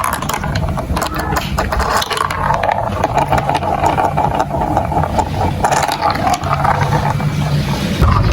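Marbles rolling and clattering down a plastic building-block marble run: a continuous rolling rumble with many small clicks.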